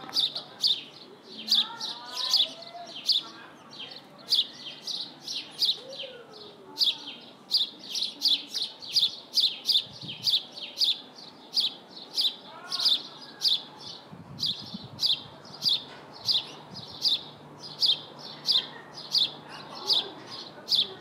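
A bird chirping steadily, short high chirps repeating about two to three times a second, with a few fainter sliding calls now and then.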